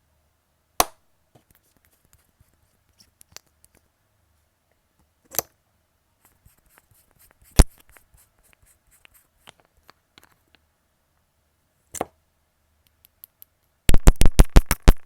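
Four sharp, isolated clicks or knocks spread over quiet room tone, with fainter small clicks between them; near the end a loud, rapid series of hits begins.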